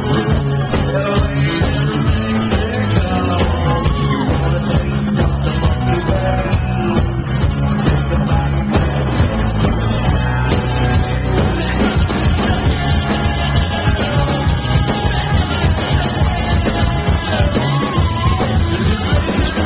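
Rock band playing live: drum kit and electric guitar with a male singer's vocals, loud and continuous.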